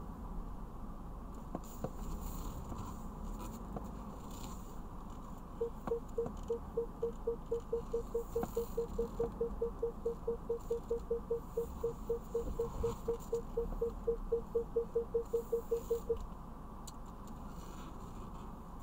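BMW's rear parking sensors beeping while reversing: a steady train of short mid-pitched beeps, about four a second, that starts a few seconds in and cuts off after about ten seconds. The warning means the car is closing in on an obstacle behind it.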